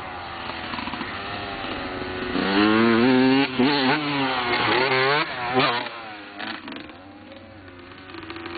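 Kawasaki KX125 two-stroke dirt bike engine, quieter at first, then loud as it comes close past over a jump, its pitch rising and falling several times with the throttle. It fades after about six seconds as the bike rides away.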